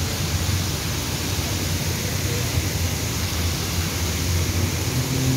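Steady rushing and splashing of water from a row of fountain jets falling into a basin, with a low rumble underneath.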